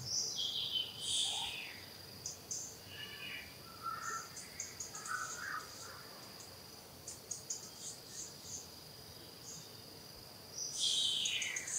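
Newborn long-tailed macaque crying in high-pitched squeals that fall in pitch, once at the start and again near the end, with softer short chirps between. A steady high insect drone runs underneath.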